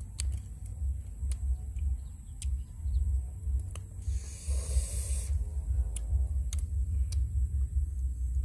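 Wind buffeting the microphone, a low rumble that rises and falls in gusts, with scattered small clicks and a brief hiss about four seconds in.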